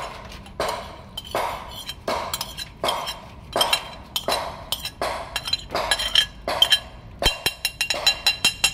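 Evenly spaced glassy clinks with a ringing high note, about one every 0.7 seconds, breaking into a quicker run of clinks near the end.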